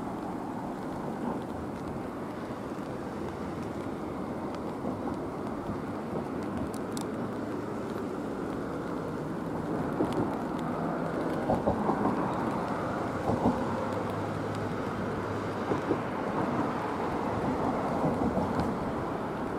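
Wind buffeting the microphone outdoors: a steady low rushing noise that swells in short gusts about halfway through.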